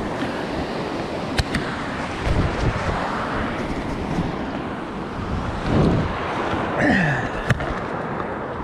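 Steady wind and surf noise, broken by knocks, rubbing and clicks from a handheld action camera being moved about, with a couple of low thuds and a sharp click about a second before the end.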